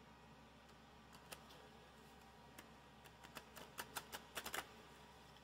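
Aquarius Gremlins playing cards, with a coated linen-like finish, clicking and snapping against each other as the deck is handled and fanned out in the hands. A few scattered clicks come first, then a quick flurry of sharper clicks in the second half.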